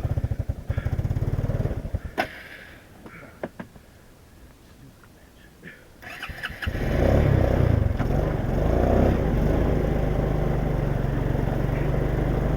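ATV engine running, cutting out about two seconds in, with a few clicks in the quiet that follows. About six and a half seconds in it starts again and runs loud and steady at raised revs.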